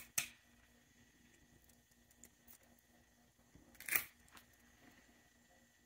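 Kitchen shears snipping through the fins of a raw American shad. There is a sharp snip just after the start and a louder, crunchier cut about four seconds in, with faint ticks of handling in between.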